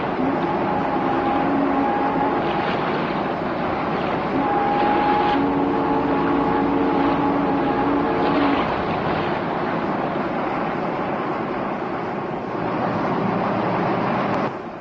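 Boat under way at sea: a steady rush of engine, water and wind, with a few faint held tones in the first half. The noise drops off sharply near the end.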